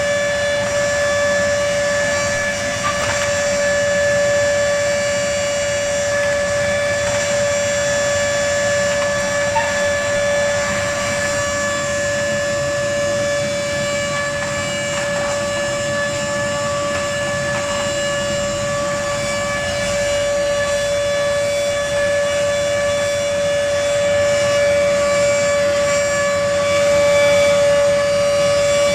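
Vacuum cleaner running continuously, its motor giving a loud, steady whine over a rush of air. The owner finds it unusually noisy, louder even than his car.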